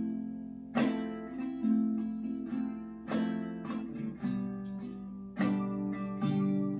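Acoustic guitar strumming slow chords, a stroke about once a second with the chords ringing between: the instrumental accompaniment between sung lines.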